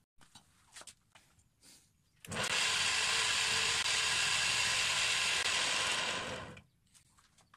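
Homemade coconut grater, a bench grinder motor driving a toothed grater head by V-belt, started up for a test run: it comes on suddenly about two seconds in, runs steadily at speed for about four seconds, then cuts out and winds down.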